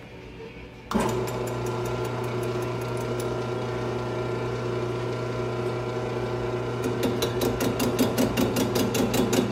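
Metal lathe switched on about a second in, its motor and spindle running with a steady hum. From about seven seconds a rapid, even ticking, about five clicks a second, joins in as the tool cuts the base of a chainsaw cylinder spinning in the chuck.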